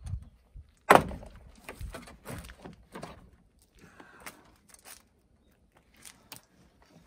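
Plastic door trim panel being pried off a Toyota HiAce's steel front door: a sharp crack about a second in as a retaining clip pops loose, followed by scattered plastic clicks and knocks as the panel comes away.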